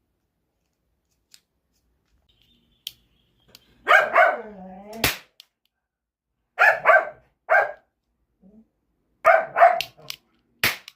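A dog barking in short runs of two or three barks, with a falling whine after the first pair. Between the barks come sharp pops from a toy cap-gun revolver: one about five seconds in and another near the end.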